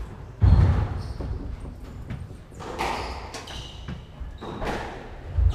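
Squash rally on a wooden court: the ball cracks off rackets and walls among heavy low thuds, the loudest about half a second in and another near the end, with short high squeaks from court shoes.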